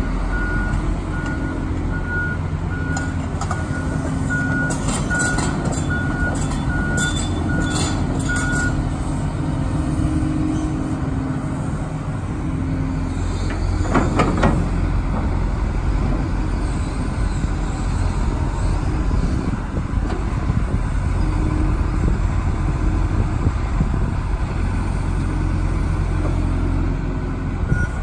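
Hitachi ZX200LC-3 excavator's diesel engine running steadily under hydraulic work, with its travel alarm beeping about one and a half times a second for the first eight seconds or so and again at the very end. A brief clatter comes about halfway through as the bucket and thumb work.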